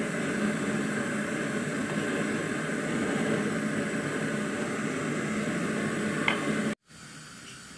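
Steady machine-like hum and hiss of background noise, which cuts off abruptly near the end and drops to a quieter hiss.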